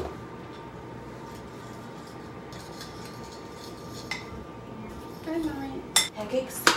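Fork stirring pancake batter in a ceramic bowl, with faint scrapes and clinks against the bowl. Near the end there are two sharp knocks as the bowl is set down on the counter.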